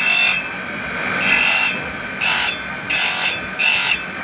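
Glass being engraved on a small rotating wheel. The mug is pressed to the wheel in five short strokes, each giving a high, shrill grinding whine over the steady run of the motor.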